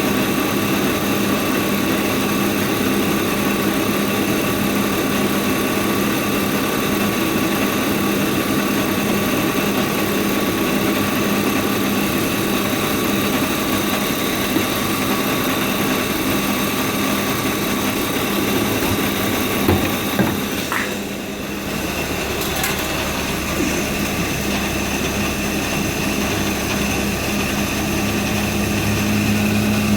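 BMW E36 328i's 2.8-litre straight-six idling steadily during a vacuum-leak check. About two-thirds through there are a couple of clicks and the sound dips briefly. Then a deeper hum comes in and grows louder near the end.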